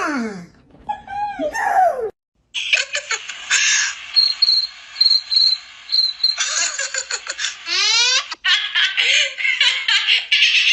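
Loud, hysterical laughter in choppy bursts, after a short squawky cartoon-duck voice and an abrupt cut. Partway through comes a quick run of short high-pitched chirps, and a rising sweep follows near the end.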